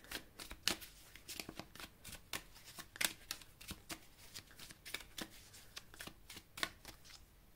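Tarot cards being shuffled and handled: soft, irregular flicks, taps and slides of card on card.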